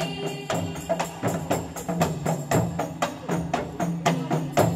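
Zamrah ensemble's hand frame drums (rebana) playing a brisk, steady percussion passage without singing, about three to four strikes a second.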